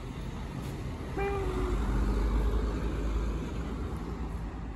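A road vehicle passing: a low engine and tyre rumble that swells about a second in, peaks near the middle and fades. As the rumble begins, a short steady-pitched tone sounds once.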